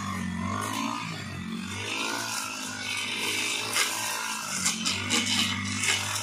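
Backpack brush cutter's small engine running, its pitch rising and falling as the throttle is worked while cutting tall grass, with several sharp clicks between about four and six seconds in.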